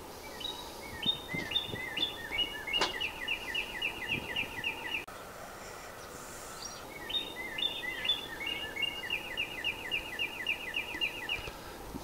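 A songbird singing two long songs, each opening with a few quick stepped notes and going into a steady run of quickly repeated notes, about five a second; the second song begins about seven seconds in. A single sharp click sounds about three seconds in.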